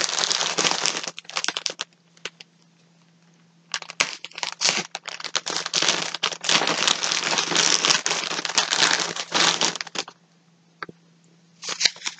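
Packaging crinkling as skeins of yarn are handled and taken out: a dense crinkle at the start, a near-silent pause of about two seconds, a long stretch of crinkling and crackling, then a short burst near the end.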